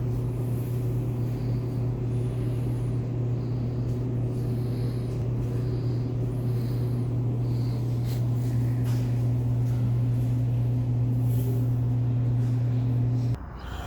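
Steady low machine hum with a few faint higher tones above it, cutting off abruptly near the end.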